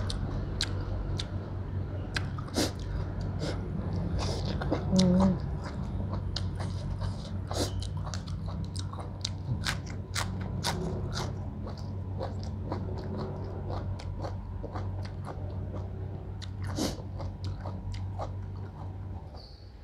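Close-miked eating sounds of chewing and biting raw beef tripe and crisp fresh lettuce: wet mouth clicks and crunches at an uneven pace over a steady low hum. A brief louder hum comes about five seconds in.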